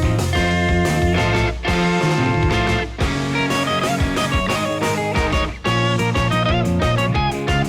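Background music: a guitar-led instrumental with plucked and strummed electric guitar over bass and drums.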